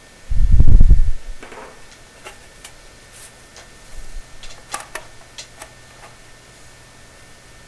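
A dull, deep thump about half a second in, then scattered light metallic clicks and crunches from a hand crimper (dimpler) squeezing the end of a 3-inch sheet-metal flue pipe so it will slide inside the next section.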